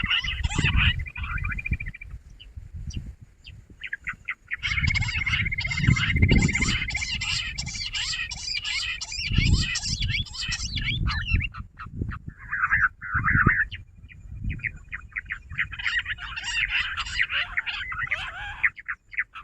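Jungle bush quail calling: runs of rapid chattering calls over a steady high trill, in bouts with short pauses. Low rumbling thumps run under the calls.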